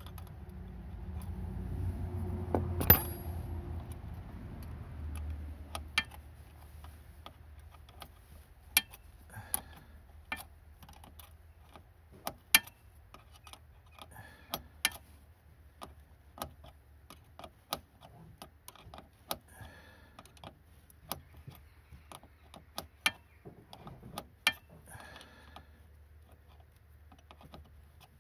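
Irregular light metallic clicks and clinks of an open-end wrench working a brass brake-line fitting where a copper line joins the rubber brake hose, with one sharper clank about three seconds in. A low rumble underlies the first few seconds.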